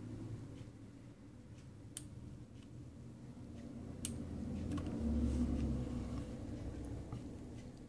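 Two isolated sharp clicks about two seconds apart, and a low rumble that swells about halfway through and fades.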